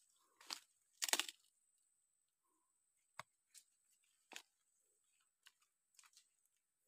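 Footsteps in dry leaf litter and twigs, heard as scattered crackles. The loudest burst comes about a second in, and a couple of sharp snaps follow later.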